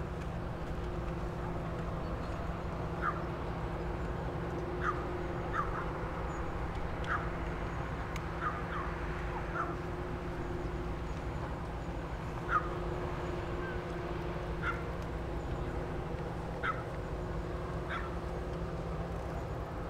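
Steady low rumble with a droning hum from the large ship and its escort tug under way, while birds give short calls every second or two.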